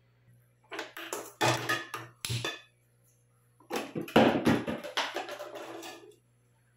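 Metal cookware clattering and knocking, in two bursts: an aluminium kadai being set and shifted on a gas stove's burner grate.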